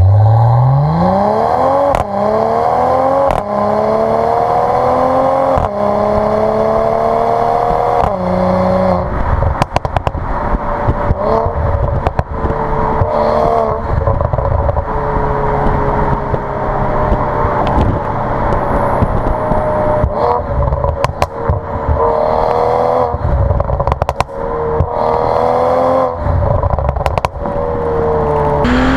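Mercedes-AMG CLS53's turbocharged straight-six through an Innotech iPE valved exhaust, accelerating hard through about four quick upshifts in the first eight seconds, then running at steadier revs with short rises in revs later on. Sharp crackles and pops from the exhaust come on and off throughout.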